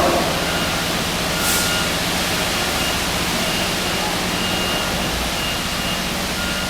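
A heavy diesel engine on a truck or site machine runs steadily, with a faint reversing alarm beeping at an even pace. A brief hiss comes about a second and a half in.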